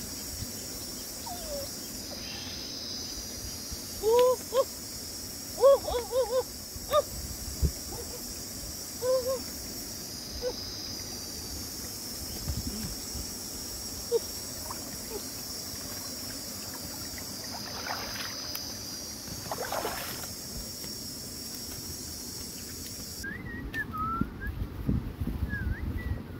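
Insects buzzing high and steadily, with a string of short pitched calls between about four and ten seconds in. Near the end the buzz cuts off and gives way to light chirps and soft thuds of footsteps on dry grass.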